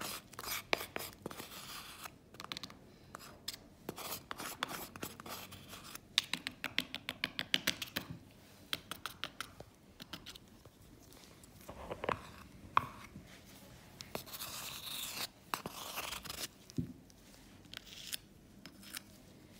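Metal plaster spatula scraping thick wet dental plaster from a flexible mixing bowl into a small cup, with a series of short scrapes and clicks.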